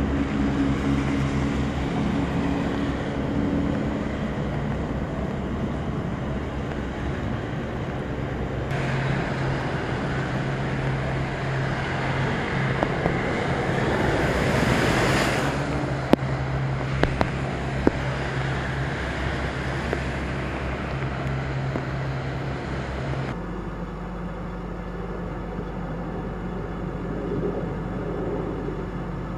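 Vehicles driving through a flooded street: a steady wash of water and rain with a low engine hum, and a loud rush of spray about fourteen seconds in as a car ploughs into deep floodwater and throws up a wall of water. Near the end the sound changes abruptly to a quieter, steadier background.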